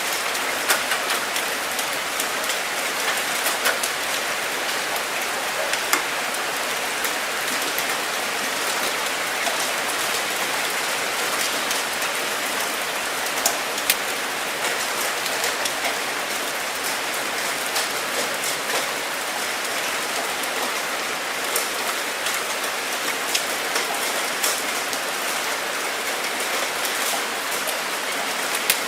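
Steady rain falling, an even hiss with the scattered sharp ticks of individual drops hitting a surface.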